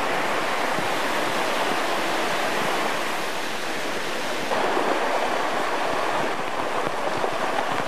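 Fast-flowing muddy floodwater rushing steadily, with a slight change in level about four and a half seconds in.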